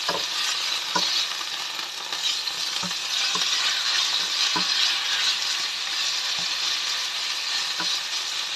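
Pork pieces sizzling in olive oil in a frying pan, stirred with a plastic slotted spatula that knocks and scrapes against the pan every second or two.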